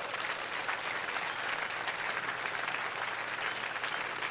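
Theatre audience applauding steadily.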